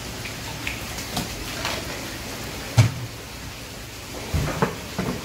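Water splashing and dripping as a live olive flounder is scooped out of a fish tank with a hand net. Scattered short slaps and knocks come through, the loudest a little before halfway and a few more close together near the end.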